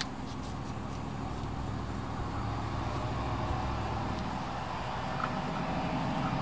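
A motor vehicle's engine rumbling steadily, slowly growing louder.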